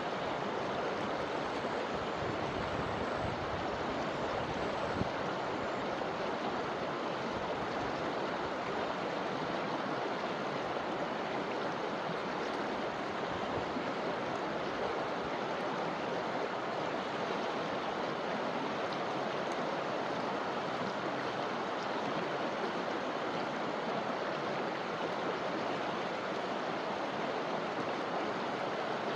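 Forest river flowing steadily, an even rush of water over rocks.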